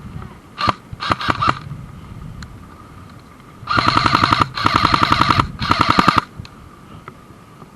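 Airsoft gun firing: a few quick single shots about a second in, then three rapid full-auto bursts, the last one shortest.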